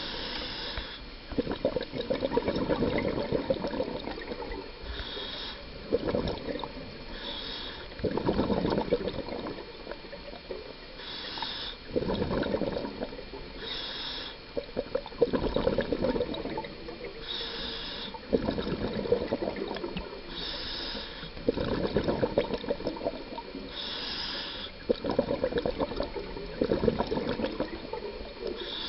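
Scuba diver breathing through a regulator: a short hiss on each inhale, then a longer rush of bubbling exhaled air, repeating every three to four seconds.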